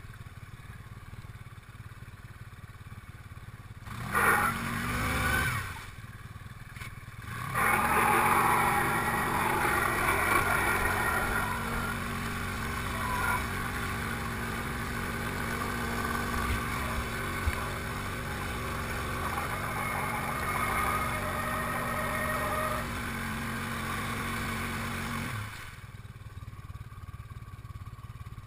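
Quad-bike (ATV) engine running as it ploughs through shallow floodwater, with water splashing around the wheels. A brief surge comes about four seconds in. From about seven and a half seconds the engine runs louder on a steady note with heavier splashing, easing back near the end.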